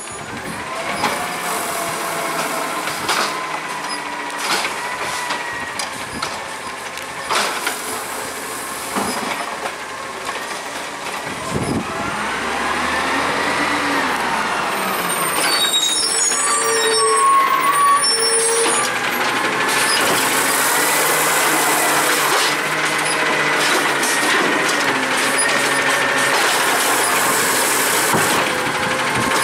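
Autocar ACX garbage truck's engine running as it pulls up to the curb, with a few knocks. About two-thirds in it grows louder as the engine works the hydraulics of the Amrep automated side-loader arm, which lifts and dumps a recycling cart near the end.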